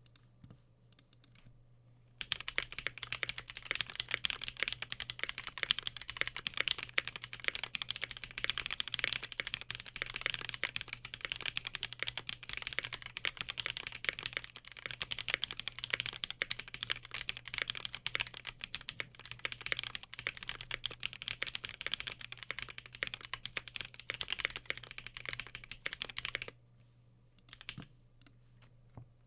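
Continuous fast typing on a custom 60% mechanical keyboard with lubed Holy Panda tactile switches, a brass plate, foam-filled case and GMK doubleshot keycaps. A few single keystrokes come first, then steady typing starts about two seconds in and stops a few seconds before the end.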